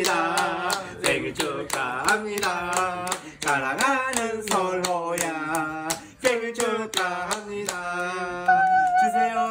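People singing a song together while clapping along, about three hand claps a second in a steady rhythm.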